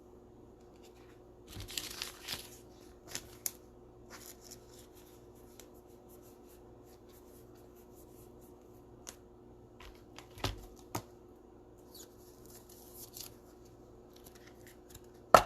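Trading cards being handled and slid into plastic sleeves and top loaders: light rustling and scraping around two seconds in, scattered soft clicks and taps, and a sharper click near the end, over a faint steady hum.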